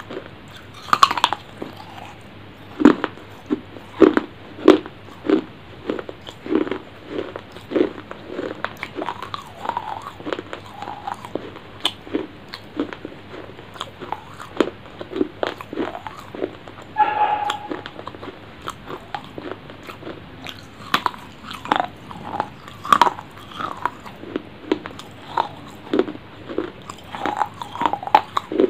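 A person eating right at a clip-on microphone: bites and crunchy chewing with wet mouth clicks, in a steady rhythm of roughly one to two chews a second.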